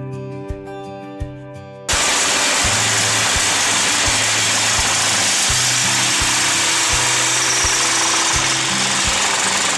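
Background music with a steady beat; about two seconds in, a loud, steady machine noise starts suddenly and keeps running over the music.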